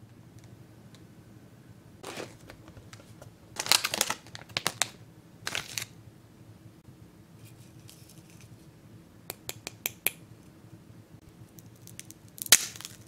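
Paper and plastic packaging crinkling and rustling in several short bursts. Near the end comes one sharp loud crack as a triangular karakara senbei rice cracker is snapped open by hand.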